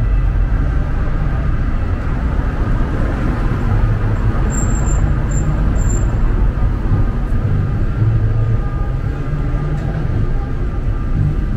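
City street ambience: a steady rumble of road traffic with a general urban hum, and three short high-pitched chirps about halfway through.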